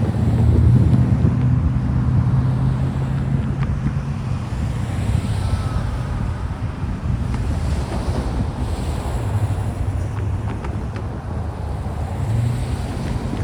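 Freight train of covered hopper cars rolling past a grade crossing: a steady low rumble with wheel noise and a few scattered clicks, with wind on the microphone.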